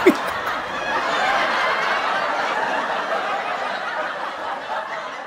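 A crowd laughing, a steady wash of many voices that slowly fades out near the end.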